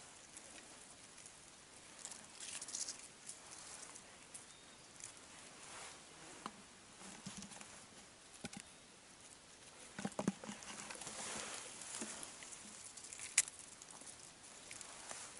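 Hands rustling through dry grass and brush while picking rosehips, with scattered light clicks of stems and twigs and one sharper click near the end.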